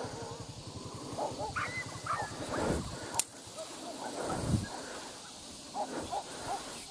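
Hunting dogs barking and yelping: short, scattered yelps through the whole stretch, with one sharp click about three seconds in.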